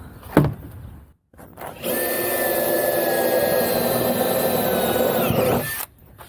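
Power drill running steadily for about four seconds, its pitch falling slightly just before it stops. A short sharp click comes about half a second in.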